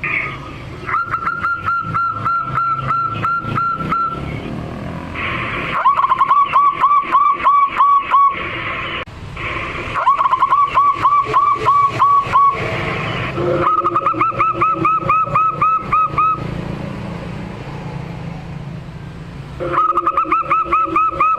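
Zebra dove (local perkutut) singing: phrases of rapid, evenly repeated cooing notes, about four a second, each phrase two to three seconds long, five phrases with short pauses between them.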